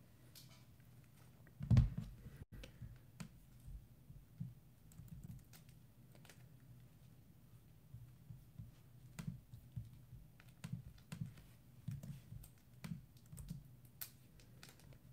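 Typing on a MacBook Air laptop keyboard: soft, irregular key clicks, with one louder thump about two seconds in.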